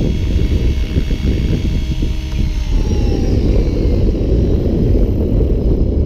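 GAUI X7 electric RC helicopter hovering with a steady motor and rotor whine, which slides down in pitch about halfway through as it sets down and the rotor winds down. Heavy wind rumble on the microphone throughout.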